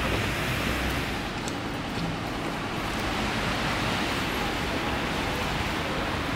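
Steady city street traffic noise: an even rushing hiss with a low rumble underneath.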